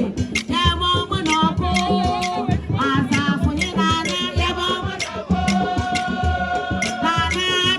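Music: singing voices over percussion with rattles keeping a steady beat.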